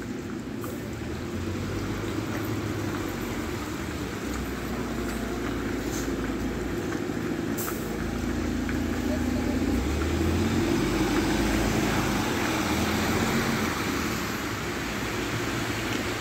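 Articulated city bus pulling away, its engine running as a steady low rumble, then a car driving past on the wet street with tyre hiss that swells and is loudest about ten to thirteen seconds in.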